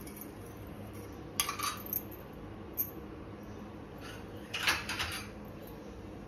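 A steel spoon clinking and scraping against a frying pan and plate as mustard seeds are tipped into the oil. The clatter comes in three short bursts: a little past a second in, near three seconds, and the loudest around four and a half seconds.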